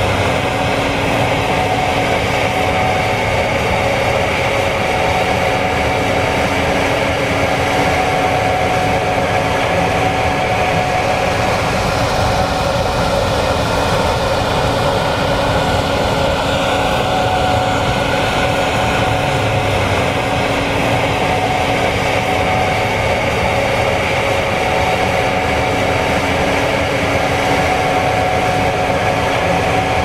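Gleaner S96 combine running steadily under load while harvesting soybeans: a constant machine drone with a few steady tones over an even rushing noise.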